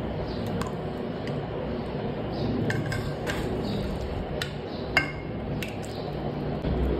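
A metal ladle clinks against a saucepan and serving bowl as thick peanut stew is ladled out. There are several light clinks, the sharpest about five seconds in, over a steady low rumble.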